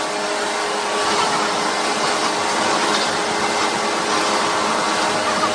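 Plantain-chip processing-line machinery running, a steady whir with a constant hum through it.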